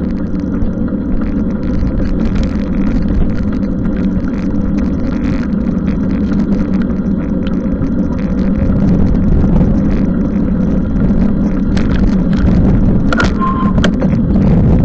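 Steady low rumble of road and wind noise while riding a bicycle on a wet road, with a few short clicks and a brief higher-pitched tone about thirteen seconds in.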